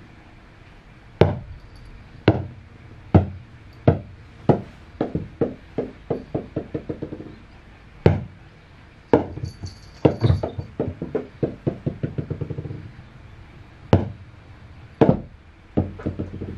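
Small rubber super balls bouncing on a wooden floor. There are single sharp bounces, and twice a run of quickening, fading bounces as a ball settles, about five seconds in and again about ten seconds in.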